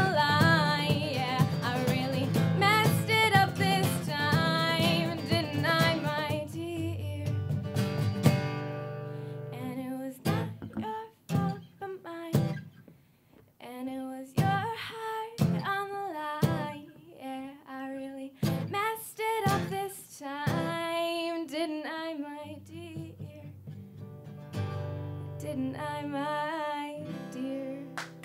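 Live acoustic folk-rock song: a woman singing over strummed acoustic guitar, with a cajón. About eight seconds in the accompaniment drops to sharp, separate stop-time hits under the voice, and the full strumming returns a few seconds before the end.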